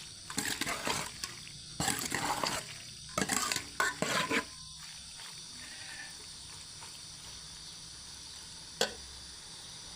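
A spatula stirring and scraping macaroni in a pan, in several irregular strokes over the first half, then a steady sizzle with a single click near the end.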